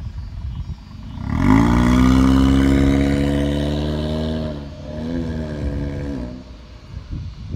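Hyundai Veloster's engine revving hard as the car pulls away on dirt: the revs climb sharply and hold high for about three seconds, drop, rise briefly once more, then fade as the car moves off.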